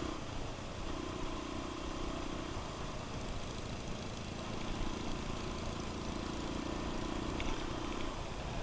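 Suzuki DR dual-sport motorcycle's single-cylinder engine running on the move, over a steady rush of wind and tyre noise. Its steady note drops away twice.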